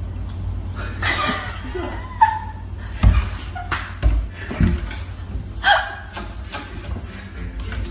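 A person laughing in short bursts, with a few sharp clicks in between.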